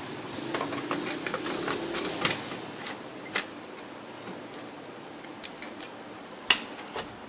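Plastic clicks and rattles as the HP LaserJet P1102 printer's cartridge door and housing are handled: a quick run of small clicks over the first few seconds, then scattered ticks and one sharp click about six and a half seconds in.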